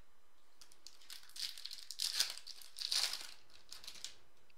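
Foil wrapper of a Topps Chrome trading-card pack crinkling as it is torn open by hand, in several short rustling bursts.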